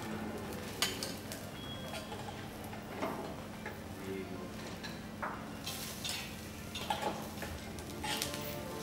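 Metal spatulas and tongs clinking and scraping against a steel flat-top griddle and steel ingredient trays, with scattered sharp clanks over a steady low hum and a light sizzle of onions frying on the griddle.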